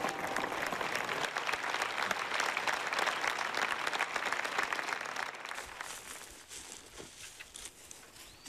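Crowd applauding, a dense patter of clapping that fades out about five seconds in, leaving only faint scattered clicks.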